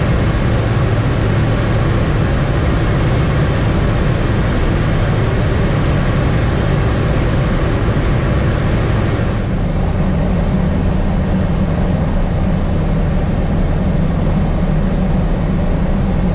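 The Continental CD-155 turbodiesel engine and propeller of a Robin DR401 droning steadily in flight, heard inside the cockpit with a rush of air noise. The higher hiss drops away about nine and a half seconds in, leaving the low drone.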